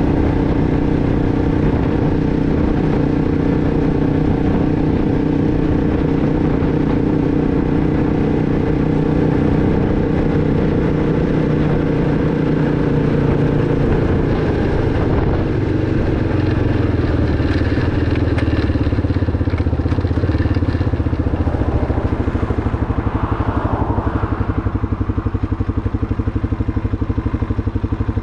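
2006 Arctic Cat 500 ATV's single-cylinder four-stroke engine running while riding. The engine note drops about halfway through and stays lower to the end.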